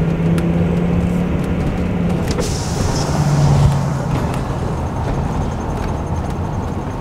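A Class C motorhome's engine and road noise heard from inside the cab while driving, a steady low hum whose note drops and grows louder for a moment about three seconds in.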